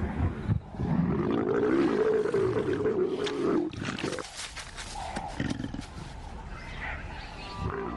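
Leopards snarling and growling: a long, wavering growl for the first few seconds, then sharp hissing snarls and softer growls.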